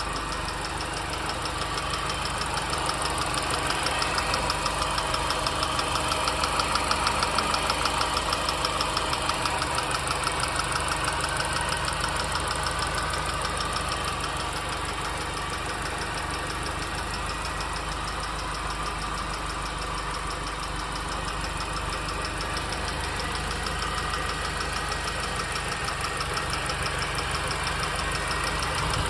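R53 MINI Cooper S supercharged 1.6-litre four-cylinder engine idling with a fast, regular ticking in time with the engine, a noise whose source the owner cannot place.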